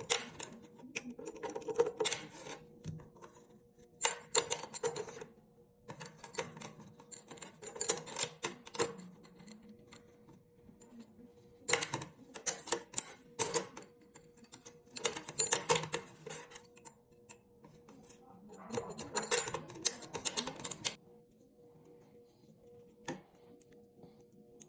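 Bursts of rapid, hard clicking and rattling, each lasting a second or two and coming every couple of seconds, over a faint steady hum; the clicks stop near the end.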